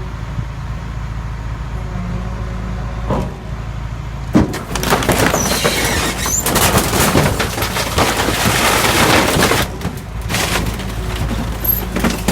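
Garbage truck's compactor crushing a fridge: the truck's engine runs steadily, a sharp knock comes about four seconds in, then loud crunching and cracking lasts about five seconds before easing off.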